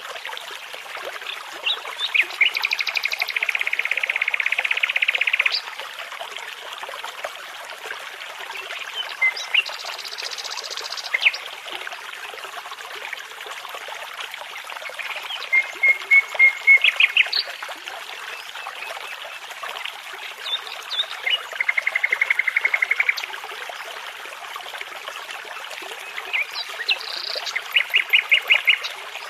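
Nightingale song in separate phrases a few seconds apart: fast rattling trills and runs of repeated whistled notes, over the steady rush of a babbling brook.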